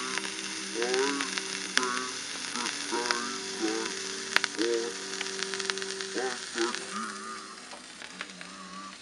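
Old Victor 78 rpm record, salvaged very dirty from an attic, playing on a turntable at 45 rpm instead of 78. The singing voice and orchestra come out slow and low-pitched under heavy crackle and hiss, with scattered sharper clicks from the dirty grooves.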